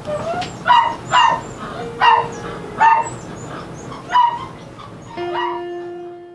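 A dog barking repeatedly, about six sharp barks roughly a second apart. Soft sustained music notes come in near the end.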